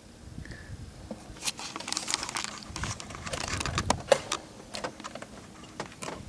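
Close handling noise: a quick run of sharp clicks and taps mixed with crinkling rustles, busiest in the middle and thinning out toward the end.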